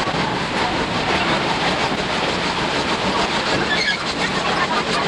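Running noise of a steam-hauled train heard inside a 50-series passenger coach: a dense, steady clatter and rumble of wheels on rail, sped up sixfold into a fast rattle.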